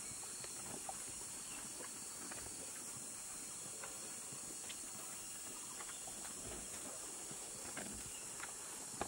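Steady high-pitched hiss of forest insects, with scattered faint clicks and knocks from cattle moving close by.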